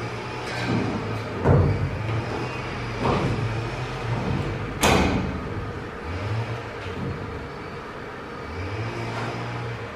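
Metallic knocks and scrapes of sawtooth steel ceiling profiles being worked into place overhead: three louder clanks with a short ringing tail, the loudest about five seconds in. A steady low hum runs underneath.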